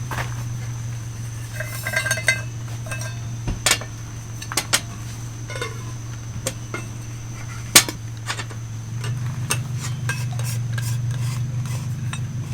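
Scattered light metallic clinks and taps of camp gear or tableware being handled, with one sharper click about eight seconds in, over a steady low hum.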